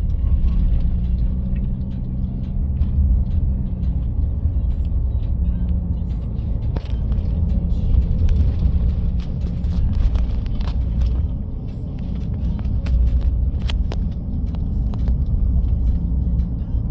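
Car engine and road rumble inside the cabin: a steady low drone with a few faint clicks.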